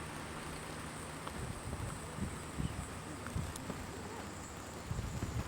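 Wind buffeting the microphone in irregular low gusts over a steady hiss, stronger near the end.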